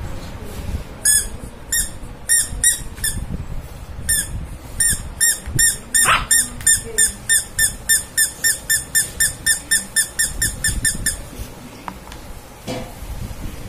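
Small rubber squeaky toy squeezed by hand over and over, giving short, high squeaks in a quick even rhythm of about three a second, which stop about eleven seconds in.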